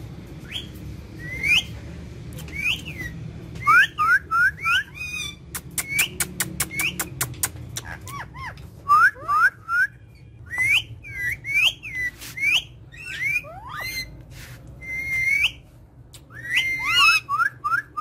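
Pet rose-ringed and Alexandrine parakeets chirping: many short, sharp whistled calls that rise and fall in pitch, often overlapping. A quick run of sharp clicks comes about five to seven seconds in.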